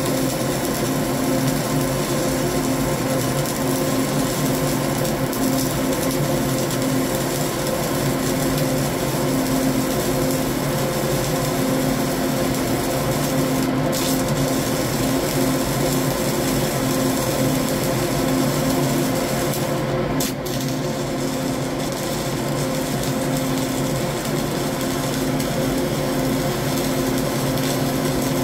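CO2-shielded flux-cored arc welding (FCAW) running a continuous arc up a vertical joint: a steady arc hiss and crackle with a low steady hum beneath it.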